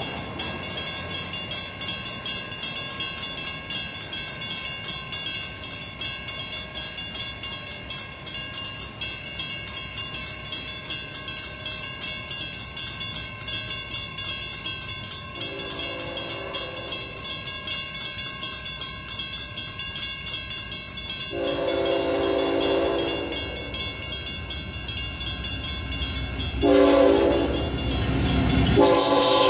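Grade-crossing warning bell ringing steadily. An approaching Amtrak Genesis locomotive sounds a series of chord-horn blasts, starting about halfway in, each louder than the last. The final blast, near the end, bends in pitch as the train nears the crossing.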